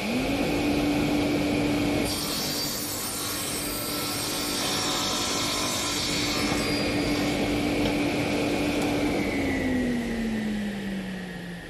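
Radial arm saw motor coming up to speed with a steady hum. Its blade then cross-cuts a square length of wood for several seconds, a loud hissing rasp over the hum. About nine seconds in, the pitch slowly falls as the saw runs down.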